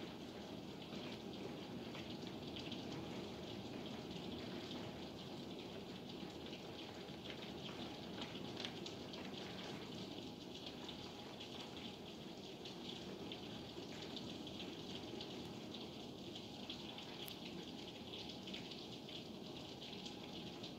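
Heavy thunderstorm rain falling steadily: an even hiss of downpour, with many individual drops ticking.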